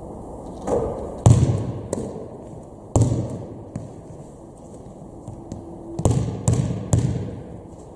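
A basketball bouncing on a gym's sports floor. There are separate loud thuds with an echo from the hall: two a little over a second in, one at about three seconds, and three in quick succession near the end.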